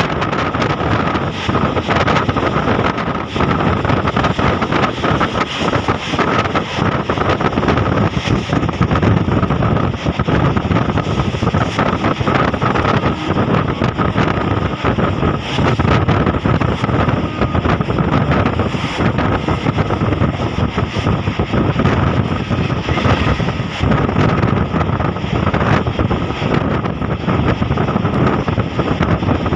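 MEMU electric train running at speed, heard from an open coach window: a steady rush of wheels on rail and passing air, with wind buffeting the microphone and a faint steady whine.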